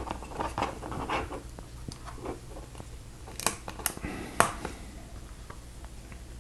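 Small plastic Lego pieces clicking and snapping as they are pressed onto a brick assembly: scattered sharp clicks, the clearest a few between about three and a half and four and a half seconds in, over a steady low hum.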